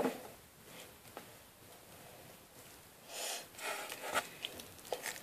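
Mostly quiet, then from about three seconds in, faint soft squishing and a few small sticky clicks as slime is kneaded and pulled between the fingers.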